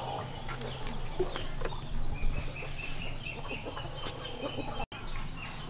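Domestic chickens clucking, with a quick run of short, high chirping notes starting about two seconds in.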